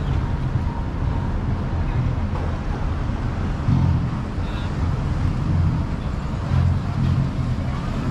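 Outdoor urban ambience: a steady low rumble with faint, distant voices.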